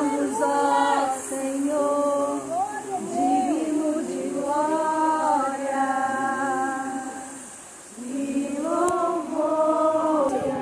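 A group of voices singing a worship hymn without instruments, in long held phrases, with a short break about eight seconds in before the singing picks up again.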